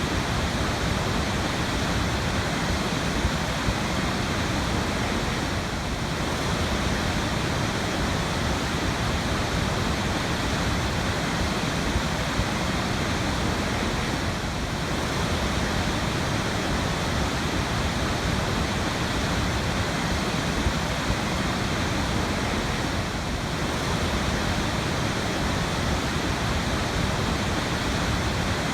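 Waterfall pouring: a steady, dense rush of falling water, with a slight dip in level about every eight or nine seconds.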